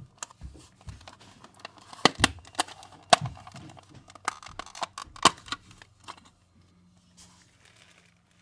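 Sharp plastic clicks and knocks as the back cover of a massage chair's handheld remote control, its five screws already undone, is taken off and the unit is handled. The clicks come irregularly and die away about six seconds in.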